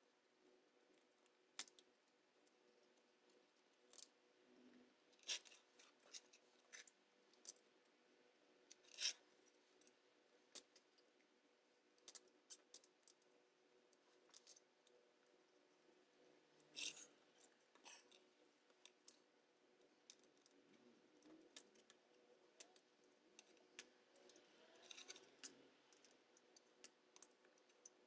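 A hand-held abrasive block rubbed along the edge of a paper dial face on a metal dial plate, trimming the paper flush to the rim: short dry scrapes and clicks every second or two, with a longer rasp a little past the middle and a quick run of strokes near the end.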